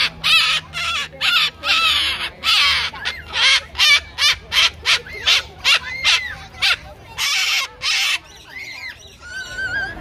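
Moluccan cockatoo screeching: a rapid run of loud, harsh calls, about two a second, that stops about eight seconds in, followed by fainter warbling whistles.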